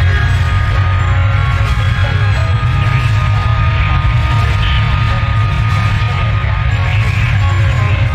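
Loud background music with a heavy, steady low end.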